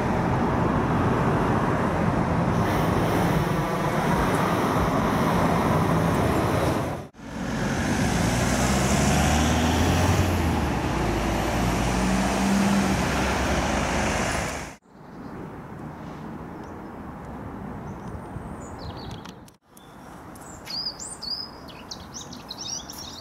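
Separate outdoor clips cut one after another. First comes a loud steady rumble. Next is road traffic, with a vehicle's engine rising in pitch in steps as it pulls away. Then a quieter background with birds chirping near the end.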